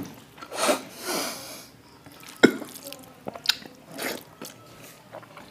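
A person eating rice and egg curry with his fingers: scattered wet mouth smacks and chewing, with a breathy noise about a second in and a sharp click, the loudest sound, about two and a half seconds in.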